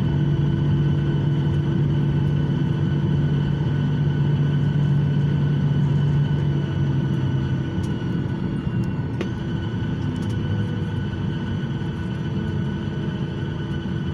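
Airliner's jet engines and cabin noise heard from inside the cabin while the aircraft taxis after landing: a steady hum with several held tones. A low tone stops about eight seconds in and the noise gets a little quieter, with a single brief click shortly after.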